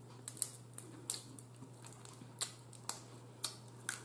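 Small sharp clicks and cracks, about eight of them at irregular intervals, from cooked blue crab shell being picked apart by hand while eating. A faint steady low hum runs underneath.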